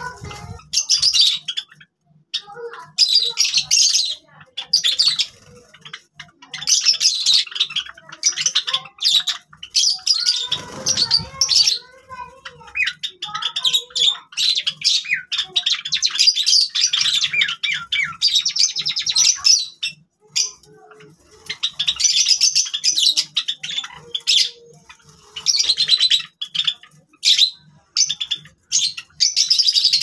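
Several Java sparrows chirping in repeated bursts of rapid, high twittering calls, each burst a second or two long with short pauses between.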